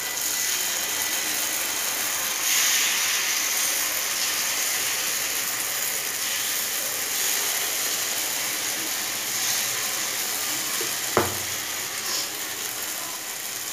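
Idli batter sizzling in hot oil as it is spooned into the cups of a paniyaram pan: a steady crackling hiss that swells a little about two and a half seconds in, with one sharp click about eleven seconds in.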